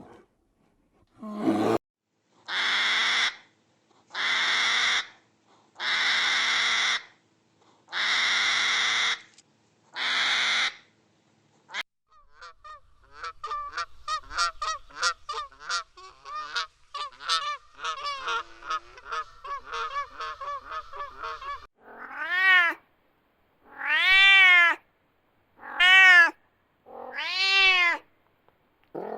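A run of animal calls: five loud hissing blasts of about a second each, then a stretch of rapid high chirping, then a series of cat meows, each rising and falling in pitch.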